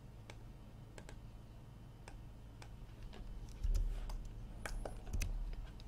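Computer keyboard keys and mouse buttons clicking in scattered single clicks, coming faster past the middle, with a low thump about three and a half seconds in, over a steady low hum.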